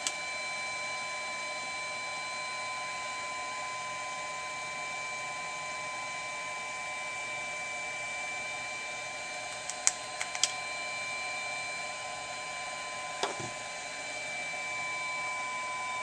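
Steady electrical hum from the soldering bench equipment, with several thin steady whine tones. About ten seconds in, a few sharp metallic clicks come as the soldering iron tip is worked in a wire-wool tip cleaner, and a single softer knock follows about three seconds later.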